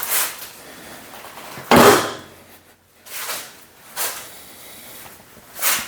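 Heavy steel lifting magnet clunking and scraping against a steel welding tabletop as it is worked into a cut-out hole: about five separate knocks, the loudest a little under two seconds in.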